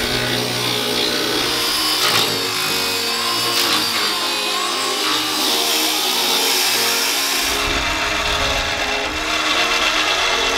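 Angle grinder cutting steel, with background music playing over it. A deep low rumble joins about seven seconds in.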